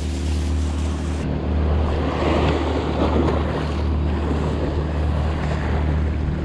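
Sea waves washing and breaking against shore rocks, swelling louder about two to three seconds in, over a steady rumble of wind on the microphone.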